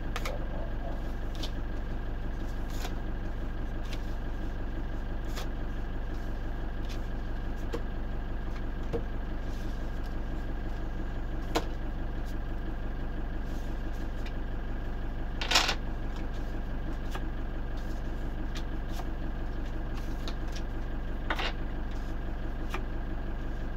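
Playing cards being handled and put down on a table: scattered soft clicks and slaps, with a few sharper ones and the loudest about two-thirds of the way through, over a steady low hum.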